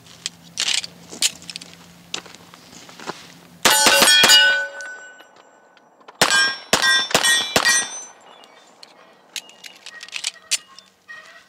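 1911 pistol firing .45 ACP at steel targets: a quick string of shots about four seconds in, then about five more between six and eight seconds, each followed by the ringing clang of hit steel plates.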